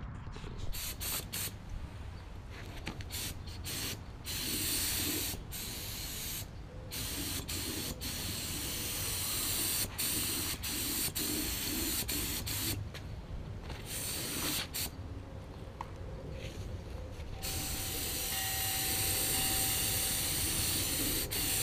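HVLP gravity-feed spray gun hissing as it sprays acrylic enamel onto steel wheels, in bursts cut by short pauses as the trigger is let off between passes. It runs unbroken for the last few seconds.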